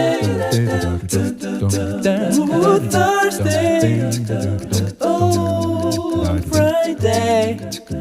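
Vocal music: singing voices over a pulsing low bass and a regular beat.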